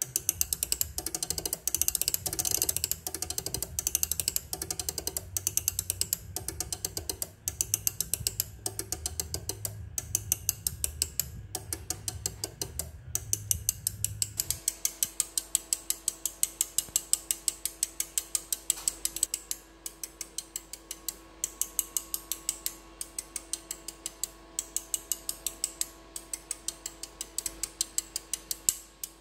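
Bank of orange sugar-cube relays on an LED chaser board clicking in quick succession as the chaser steps through its channels: sharp clicks several times a second, with brief pauses between runs.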